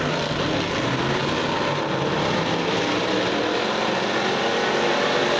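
Engines of several dirt-track race cars running at speed around the clay oval, a loud, steady sound that doesn't let up.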